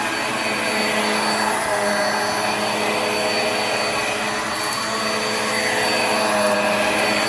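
Black + Decker Air Swivel upright vacuum running steadily on the floor: an even rush of suction airflow with a steady high motor whine over it.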